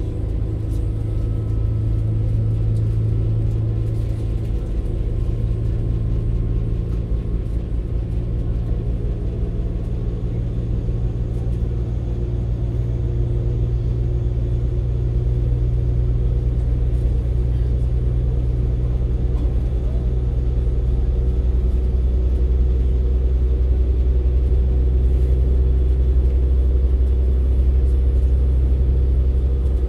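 Passenger saloon of a CAF Civity Class 196 diesel multiple unit under way: the underfloor diesel engine and running gear give a steady low drone, growing a little louder over the second half.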